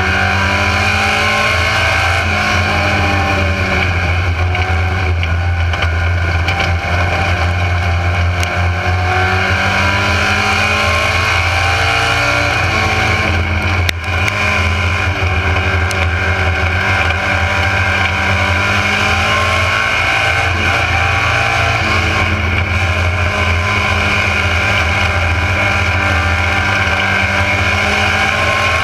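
Mini stock race car's four-cylinder engine heard from inside the car at race pace, its pitch repeatedly climbing under throttle and dropping back as the driver lifts for the turns of the dirt oval. A single sharp knock about halfway through.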